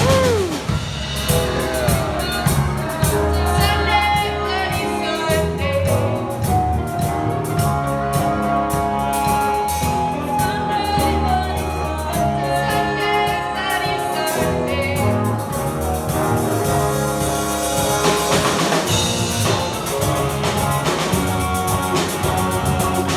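Live rock band playing a song: a lead singer over a drum kit and band instruments.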